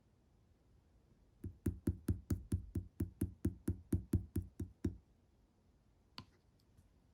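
Quick, even tapping during slime play: about fifteen knocks at roughly four or five a second, each a dull thud with a sharp click. A single click follows near the end.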